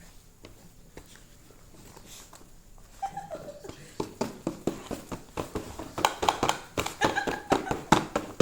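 A dog's rapid play growls and yelps with scuffling during rough play, starting about three seconds in after a quiet start and getting louder and denser.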